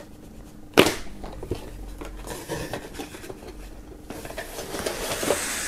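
A thin cardboard box being opened by hand: a sharp snap about a second in as the lid flap comes free, then small clicks and a scraping rustle of cardboard as the lid is folded back.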